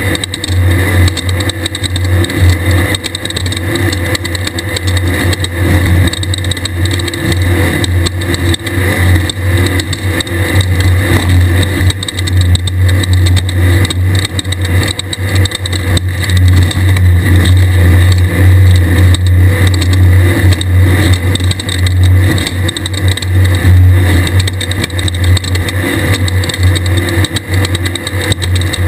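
Desert race buggy's air-cooled VW 1600 engine running hard under load, a loud steady drone with a constant rush of noise over it.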